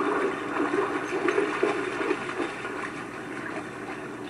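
Lake water splashing and churning as a German Shepherd wades through it, busiest in the first two and a half seconds.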